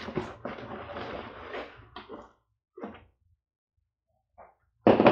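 Shredded crinkle-paper packing filler and cardboard rustling as hands dig through a box, for about two seconds, then a few faint handling sounds and a short, loud sound near the end.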